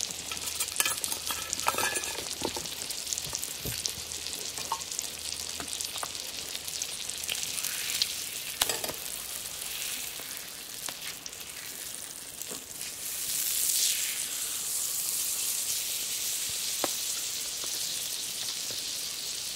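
Thick beef steak sizzling in fat on a flat iron plate over campfire embers, with scattered small pops and crackles. Shortly after the middle it is turned over with tongs, and the sizzle grows louder.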